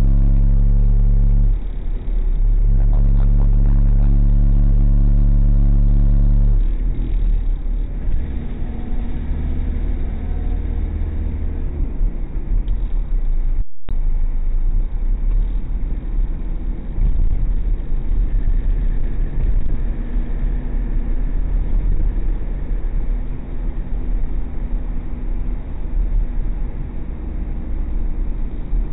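Road and engine noise heard from inside a moving car. A loud, steady low hum runs for about the first six seconds, then gives way to a rough low rumble of tyres and engine, with a brief dropout about halfway through.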